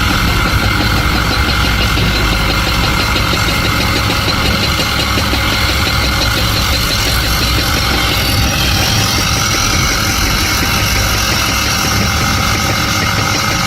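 Large diesel engine of heavy earthmoving machinery running steadily, with a high whine that rises about eight seconds in.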